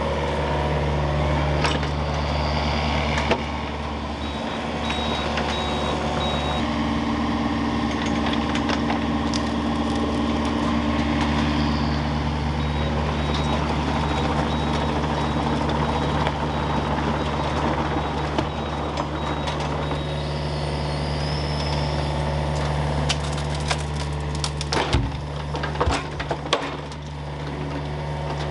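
Heavy machine engine running steadily, with a faint intermittent beeping in places and a few knocks near the end.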